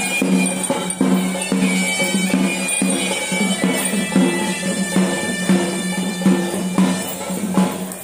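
Traditional Sri Lankan perahera-style music: a nasal, reedy wind instrument plays a melody over a steady drone, with drum strokes about twice a second.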